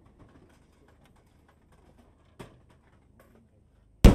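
Faint scattered clicks and pops, then near the end the sudden, very loud boom of a 12-inch (shakudama) aerial firework shell bursting, its rumble beginning to roll out.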